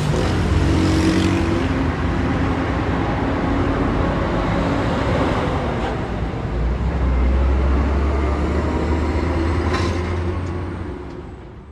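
Car and road noise: a steady low rumble under a broad hiss, like a car driving, fading out near the end.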